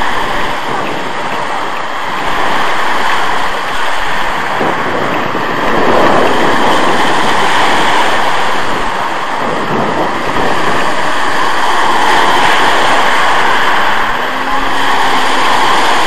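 Small sea waves breaking and washing over a pebble beach, with wind blowing on the microphone: a steady rushing that swells and eases every few seconds as each wave breaks.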